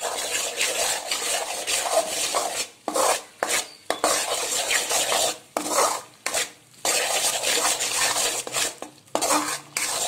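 Steel spoon scraping and stirring wheat flour through hot oil and ghee in a metal kadai, the batter sizzling as it roasts. The strokes come in runs broken by brief pauses.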